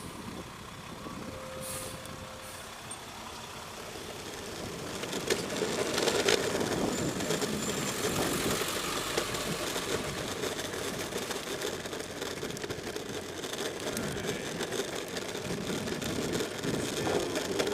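Electric skateboard wheels rolling over rough, lousy pavement: a continuous rattling road noise mixed with wind on the microphone, growing louder about five seconds in. The board's motors are not heard, only the road.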